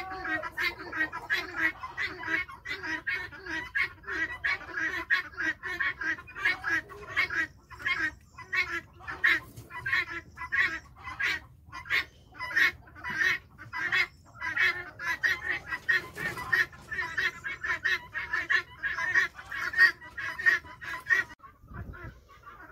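Farm poultry calling over and over in quick short notes, several a second. The calls cut off abruptly shortly before the end.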